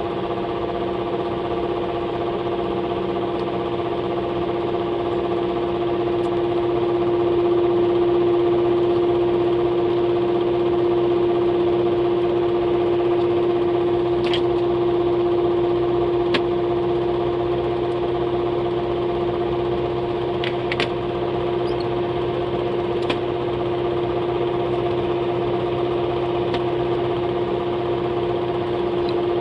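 A small motor running steadily with a constant pitched hum, with a few faint light clicks around the middle.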